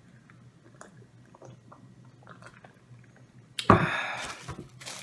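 Quiet chewing with faint small mouth clicks, then about three and a half seconds in a loud rustling noise for about a second as food packaging or a utensil is handled.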